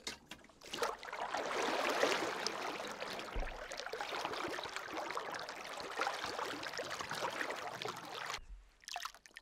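Lake water gurgling and bubbling into a water canister held under the surface, as air escapes from it while it fills. It stops abruptly near the end.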